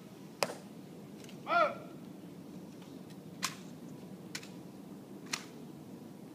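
A few sharp, isolated clicks from a ceremonial tomb guard's drill, one loud about half a second in and three fainter ones about a second apart later on. There is one short loud call about a second and a half in.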